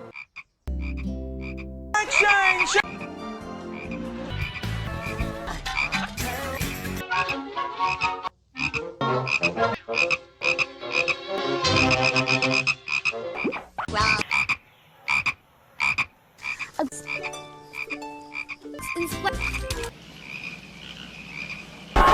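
Hollywood Edge 'single frog croak' stock sound effect, a frog croaking over and over. Each croak sits in a different clip, and the background changes abruptly every few seconds between cuts.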